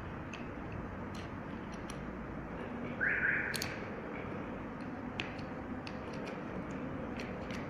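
Scattered light clicks of the small metal parts of a car door lock cylinder being handled and closed up, with one short scraping rasp about three seconds in, over a steady background hiss.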